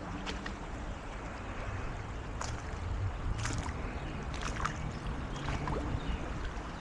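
Wind rumbling on the microphone, with a few scattered sharp clicks and taps.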